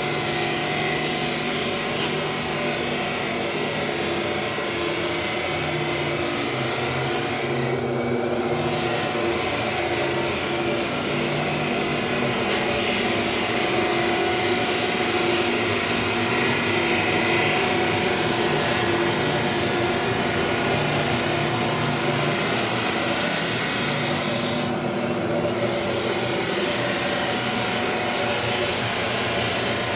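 Galaxy walk-behind drum floor sander running and sanding bare pine floorboards: a steady motor hum under the hiss of the abrasive on the wood. The hiss drops out briefly twice, about 8 and 25 seconds in.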